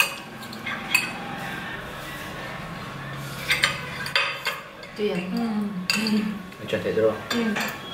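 Metal forks clinking and scraping against glass bowls and a glass serving platter as instant ramen noodles are eaten, in scattered sharp clicks.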